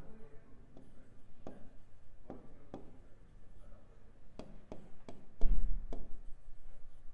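Stylus writing on an interactive smart-board screen: a string of sharp, irregular taps and light scratches as a word is handwritten, with a dull thump about five and a half seconds in, the loudest sound.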